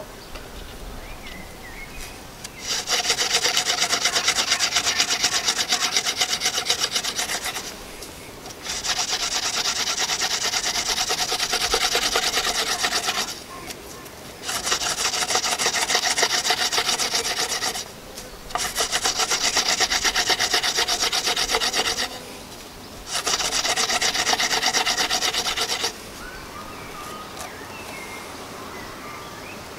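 Hand-drill friction fire: an elder spindle spun back and forth between the palms, grinding into a wooden hearth board with a fast, scratchy rubbing. It comes in five runs of a few seconds each with short pauses between. It is a burn-in attempt on which the driller can't put enough downward pressure.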